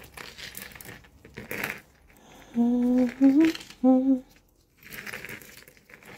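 A woman humming three short notes about two and a half seconds in, the middle note higher. Around the humming, light clicking and rustling of jewelry being handled.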